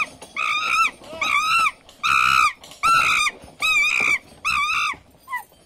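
Suspension footbridge squeaking in time as it is bounced: about eight high squeaks, nearly two a second, each rising then falling in pitch, fading out near the end.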